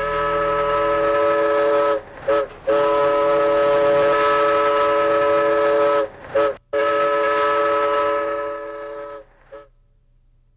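Train whistle sounding a chord of several notes: three long blasts, each followed by a short toot, the last dying away.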